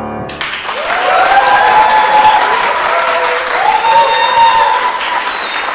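The last held note of flute and clarinet ensemble cuts off just after the start, and audience applause breaks out, with several drawn-out calls from voices over the clapping.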